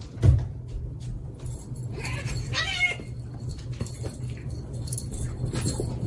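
A short animal call about two and a half seconds in, over a steady low hum, with a sharp knock near the start.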